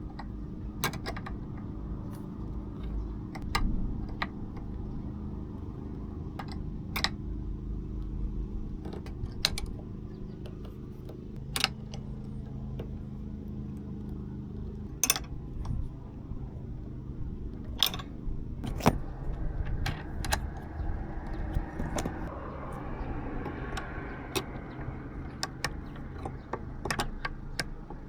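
Steady low drone, like a vehicle on the move heard inside the cabin, with irregular sharp clicks and rattles scattered through it, a couple of dozen over about half a minute, typical of loose fittings knocking.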